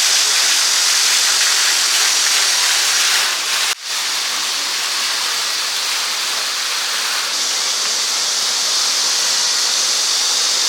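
Valley stream water running high after recent rain, a steady rushing hiss. It is broken by a brief dropout about four seconds in, where two shots are joined.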